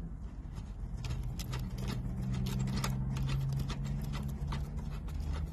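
Small irregular clicks and ticks as the antenna cable's threaded coax connector is turned by hand onto the antenna jack of a Cobra 29 LTD Classic CB radio, over a steady low hum.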